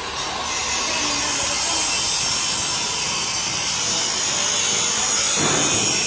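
Electric arc welding on a steel truck-body frame: a steady sizzling hiss.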